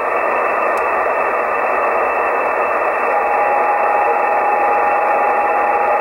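Shortwave static from a software-defined radio tuned between stations on the 20-meter amateur band in upper sideband: a steady hiss with the muffled, narrow sound of an SSB filter. About halfway through, a steady heterodyne whistle comes in and holds.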